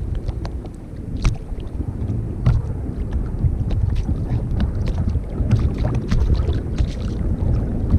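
Wind buffeting the microphone over water sloshing against a kayak hull, a continuous uneven low rumble, with scattered sharp clicks and taps.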